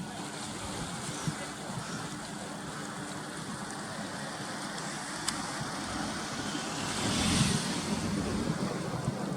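A motor's steady low hum over the noise of wind and water, with a louder wash of noise about seven seconds in.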